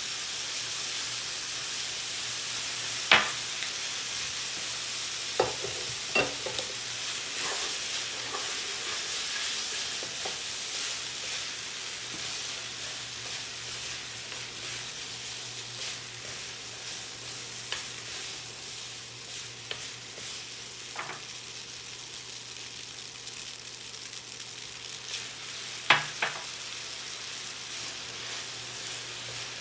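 Food sizzling steadily in a frying pan, with a few sharp knocks of a utensil against the pan as it is stirred.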